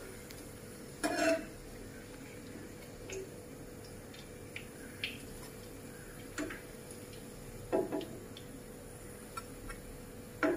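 Faint steady hum with a few scattered light knocks and clinks of a plate being handled. The clearest come about a second in, near eight seconds and at the very end, with softer ticks between.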